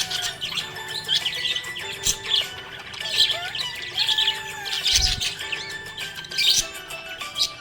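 Budgerigars chirping and twittering continuously in quick, high, overlapping calls, over background music with held notes.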